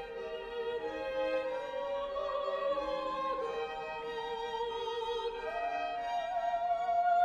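A choir singing sacred Christmas music with string accompaniment, several voices holding long notes with vibrato and moving slowly from chord to chord.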